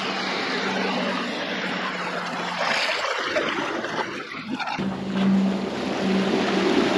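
Small boat with electric outboards running across the water: a steady rush of water and wind on the microphone with a steady low hum. The hum drops out for about two seconds midway, then returns abruptly.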